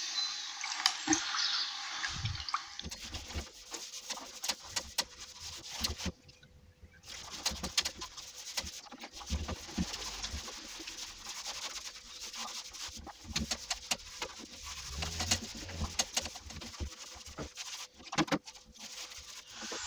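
A wide paint brush stirring diluted PVA in a plastic bucket, then scrubbing it onto a bare plaster wall in quick, scratchy strokes, sealing the wall before a skim coat of plaster.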